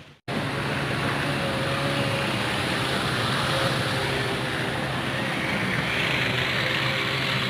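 A vehicle engine running steadily with a low hum under a dense, even hiss. The sound starts abruptly just after a brief cut.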